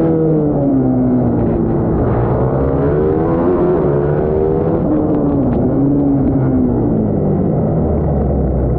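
Bucci BR12 GP racing minibike's engine heard onboard, its revs rising and falling several times as the bike accelerates and slows through the corners of a wet track.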